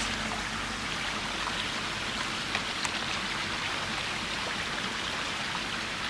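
A small stream running over rocks: a steady rush of water, with a couple of brief ticks about two and a half and three seconds in.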